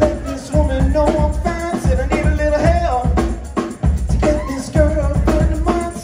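Live band playing a song: a lead singer sings over a steady beat of drums and bass.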